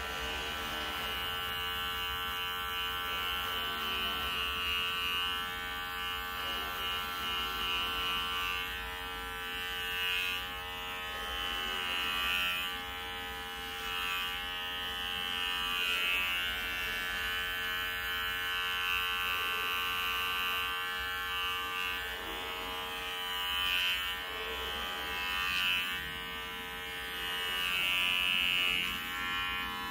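Electric hair clippers running steadily while shaving a head, a motor buzz whose sound swells every couple of seconds as each stroke passes over the scalp and cuts the hair.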